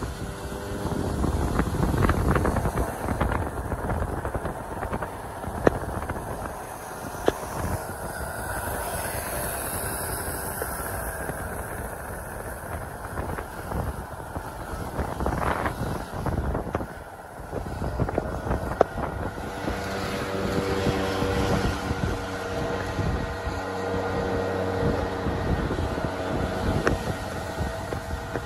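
Outdoor traffic sound: motor vehicles passing, with a continuous background rumble.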